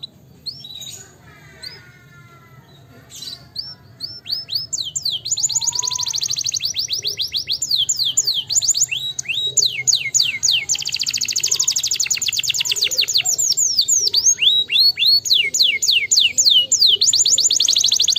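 Domestic canary singing: a few scattered chirps, then from about five seconds in a long unbroken run of fast trills made of rapid falling notes, the speed and pitch shifting every second or two.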